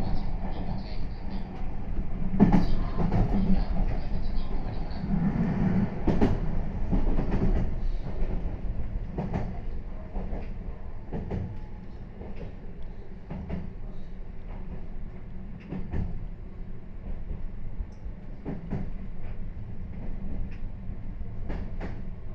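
Meitetsu 3500 series electric train running, heard from inside the car: a steady rumble, louder for the first several seconds, with the wheels knocking over rail joints every second or two.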